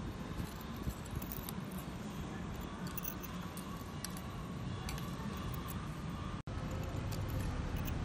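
Metal serving tongs clicking lightly against roasted clam shells a few times, over a steady low background rumble.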